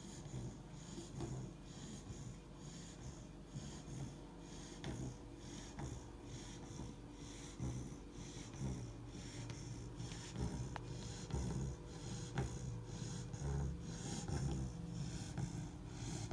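A three-month-old Labrador puppy snoring in its sleep, with quick, even snuffling breaths about twice a second.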